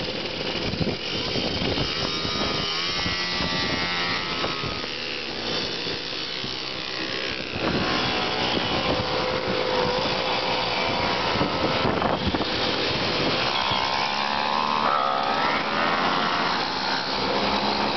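Mopeds riding past one after another, their small engines buzzing and rising and falling in pitch as each one goes by.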